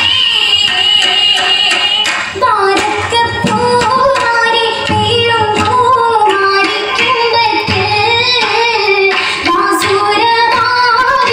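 Oppana song: a female voice singing a wavering Mappila-style melody over a low drum beat, with rhythmic handclaps keeping time.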